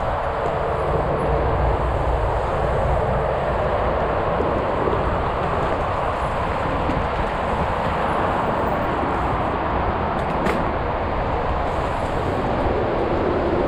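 Mountain bike riding down a rough trail: a steady rumble and rattle of tyres and bike over the ground, with one sharp knock about ten seconds in.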